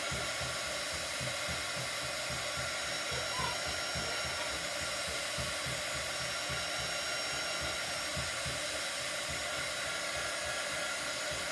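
Handheld hot-air dryer blowing steadily, drying freshly applied chalk paste.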